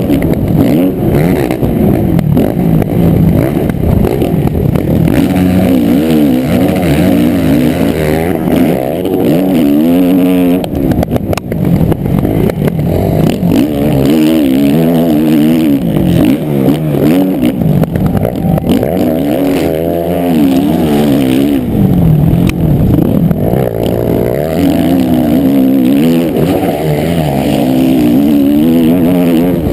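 A 450-class motocross bike's engine heard close up from the rider's helmet, revving hard and rising and falling in pitch again and again as the throttle opens and closes around the track. Its loudness drops briefly about eleven seconds in.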